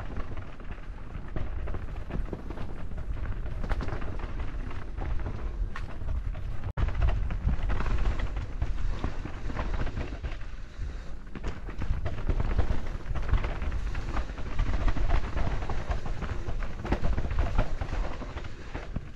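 Mountain bike riding down a dirt forest singletrack: heavy wind rumble on the camera mic over the crunch of the tyres and the rattle and knock of the bike over roots and rocks. The sound cuts out briefly about seven seconds in.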